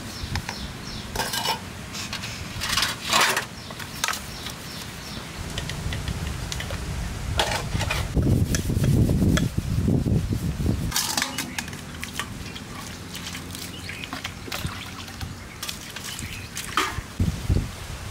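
Stainless-steel plates, tumblers and pots being washed by hand: scattered metallic clinks and clatters as pieces are handled and set down, with a longer spell of scrubbing inside a steel pot about halfway through.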